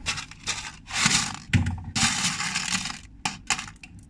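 Several bursts of crackling, rustling handling noise about a second apart, then a few short clicks near the end.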